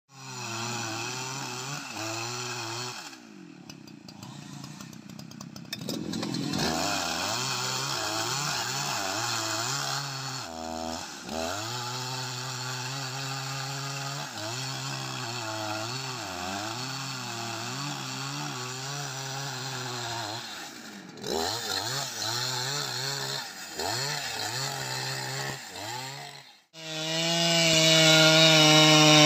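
Large two-stroke chainsaw running and revving, its pitch rising and falling, breaking off abruptly a few times. Near the end it runs louder at a steady high speed while cutting into a tree trunk.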